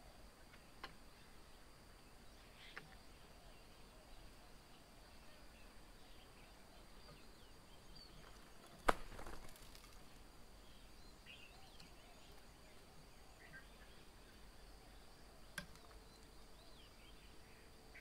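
Faint open-air ambience: a steady high insect tone under scattered soft bird chirps, with a few sharp clicks; the loudest click comes about nine seconds in and is followed by a short rustle.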